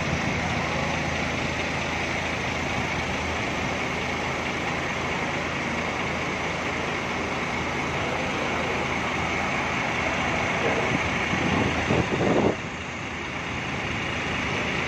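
Diesel engine of a tour bus idling steadily, with a steady high whine over the hum. It grows louder for about two seconds near the end, then settles back.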